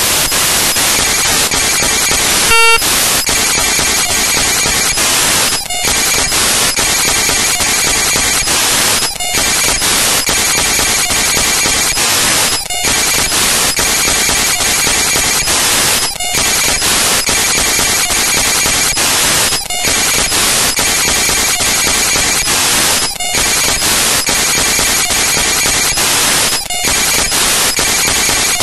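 Loud, steady static hiss, an even rush of noise at all pitches that dips out for an instant about every three and a half seconds, with a short beep-like tone about two and a half seconds in.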